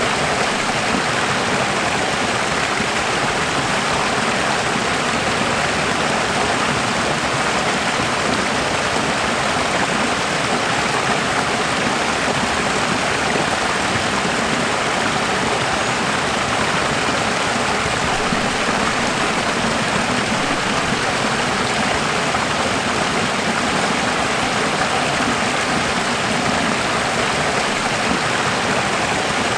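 Running water rushing steadily, an even, unbroken noise.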